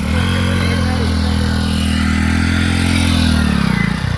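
Diesel engine of a heavy vehicle revving up and held at high revs, easing off near the end.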